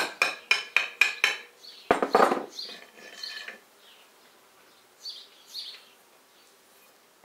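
Quick light hammer taps on the metal lower cover of a U650 tractor's hydraulic distributor, about four a second, knocking it loose. About two seconds in comes a single heavier knock that rings on, then a few faint metal clinks as the cover is lifted off.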